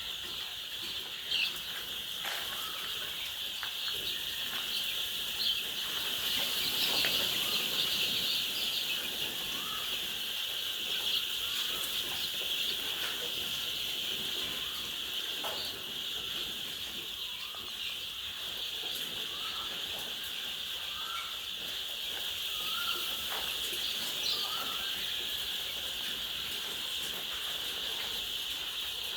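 Poultry house of laying hens: many chickens clucking and calling in short repeated notes, over a steady high-pitched buzz, with scattered light clicks and knocks.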